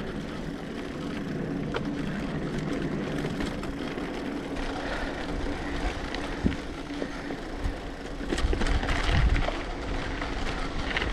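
Mountain bike riding along a dirt trail: steady rolling and rushing noise with a few sharp knocks and rattles, getting louder and rougher about eight seconds in.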